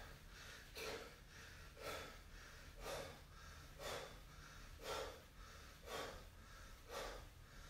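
A man breathing hard, one short, sharp exhalation about every second, in time with each rep of seated kick-outs. The breaths are faint.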